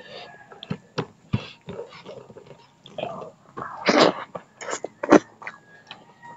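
Close-up eating sounds: wet smacking and chewing clicks, with a noisy slurp of instant ramen noodles from the hand about four seconds in, the loudest sound, followed by a sharp smack.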